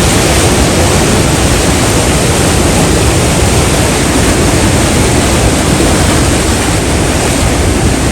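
Bagmati River in heavy flood, its floodwater rushing through a narrow rock gorge as a loud, steady, unbroken noise.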